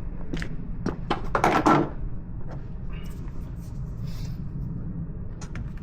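Plastic engine cover being worked off and handled: a few sharp knocks and one louder rattling clatter about a second and a half in, over a steady low hum.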